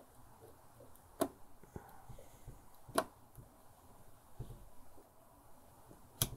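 Faint handling noises with three short, sharp clicks, about a second in, about three seconds in and near the end, as a desktop processor is set into its motherboard CPU socket by hand.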